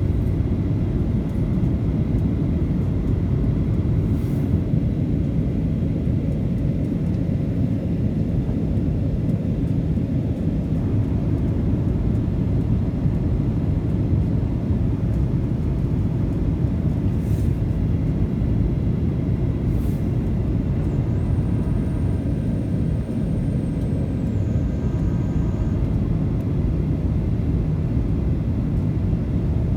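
Steady in-cabin noise of a Boeing 737 in flight: an even low rumble of engines and airflow.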